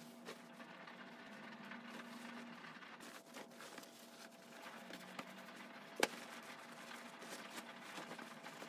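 Faint rustling and soft handling noises of damp laundry being lifted and laid out on a table, with one sharp tap about six seconds in.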